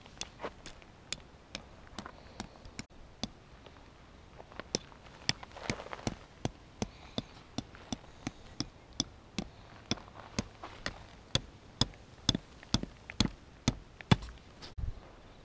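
Metal tent stakes being hammered into hard ground with the back of a hatchet: a steady run of sharp metallic taps, about two a second, with a brief pause early on and harder strikes toward the end.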